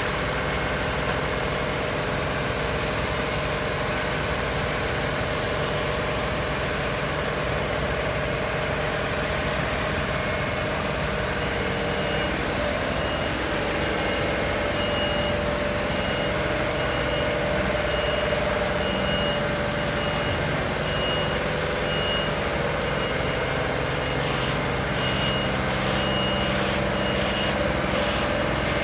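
Sheet-piling rig running steadily, its vibratory hammer working a steel sheet pile, with a steady machine drone. From about halfway a reversing alarm beeps about once a second.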